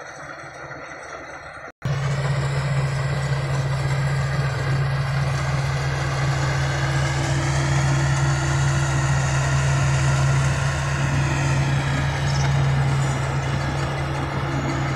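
Tracked combine harvester running steadily with a constant low engine hum. It is faint for about the first two seconds, then much louder and close up to the end.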